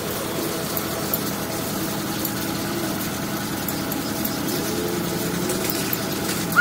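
Self-loader truck's engine running steadily, with a tone that slowly rises and falls a little in pitch.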